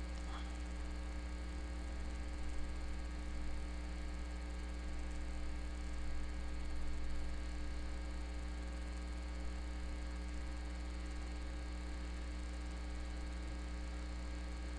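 Steady electrical mains hum with a faint hiss, unchanging throughout.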